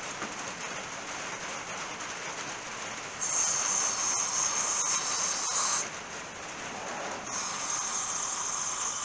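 Two hissing bursts from an aerosol can of brake cleaner, each about two and a half seconds, the second starting about seven seconds in, sprayed through a straw into a carburetor's passages to blow them clear. Behind them is a steady hiss of rain on a roof.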